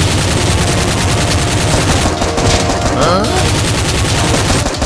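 Rapid automatic gunfire, a dubbed machine-gun sound effect firing continuously in quick shots, with a brief sliding tone about three seconds in.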